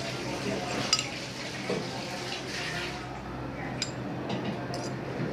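A metal spoon clicking and scraping against a small glass bowl as beaten egg is spooned out and poured onto a dry mix of powdered milk and semolina, with a few light clinks about a second in and again near the end.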